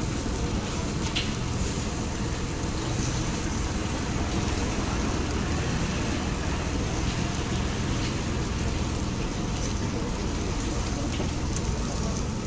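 Chicken skewers sizzling over an open-flame grill: a steady crackling hiss with a low rushing rumble and a few faint pops.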